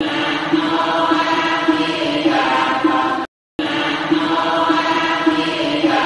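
Buddhist chanting voices over a steady held tone, a looping devotional chant that cuts out to silence for about a third of a second roughly three seconds in.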